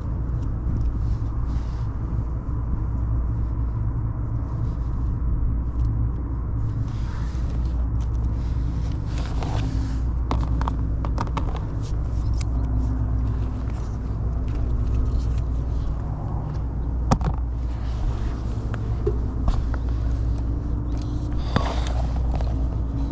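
Steady low mechanical rumble with a constant hum, with scattered sharp clicks and small knocks from hand work on wiring.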